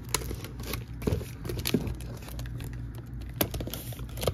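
Scattered light clicks and scrapes of a cardboard shipping case and a knife being handled, over a steady low room hum.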